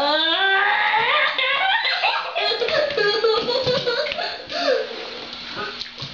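A child laughing and giggling loudly, with a rising squeal at the start.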